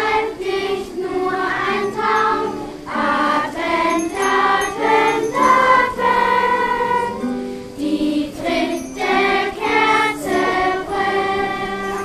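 Children's choir singing an Advent song in German, phrase after phrase, with guitar accompaniment.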